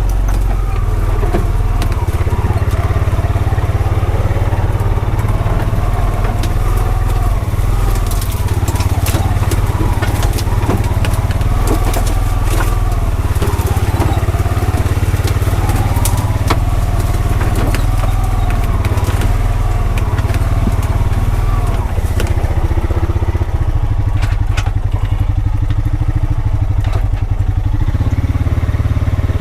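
Honda Pioneer 520 side-by-side's single-cylinder engine running under varying throttle as it drives over rough ground. Frequent sharp cracks and clatters from brush and debris under the tyres, thinning out near the end.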